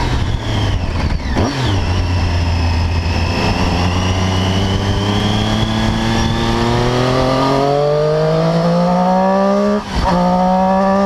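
Triumph Daytona 675's inline three-cylinder engine heard from on the bike with wind rush: a brief dip in revs about a second and a half in, a steady stretch, then the revs climbing steadily under hard acceleration, cut by a quick upshift near the end where the pitch drops sharply and starts climbing again.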